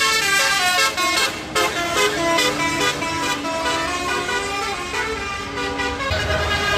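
Bus telolet basuri horn playing a quick melody, its pitch stepping rapidly from note to note. A low rumble comes in near the end.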